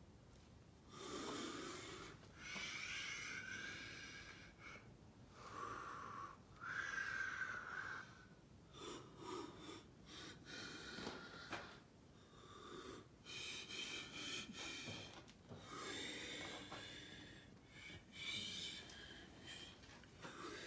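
A person breathing close to the microphone, in repeated breaths a second or two long with short pauses between them, several with a whistling, wheezy tone.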